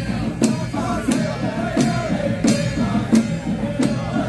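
Music with a melody over a steady percussive beat, one strike about every two-thirds of a second.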